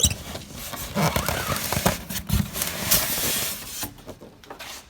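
Cardboard and plastic packaging rustling, crinkling and scraping as a boxed miter saw is unpacked, with a few knocks among it.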